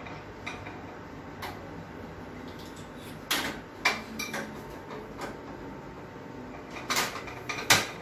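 A few separate sharp clicks and knocks at a gas stove as the burner is turned on and lit, the sharpest click near the end.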